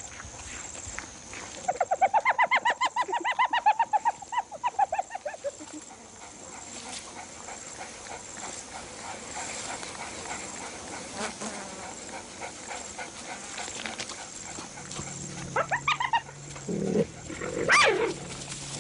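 An animal's quick run of short, pitched calls lasting about four seconds, followed near the end by a few separate calls, one of them rising and falling sharply.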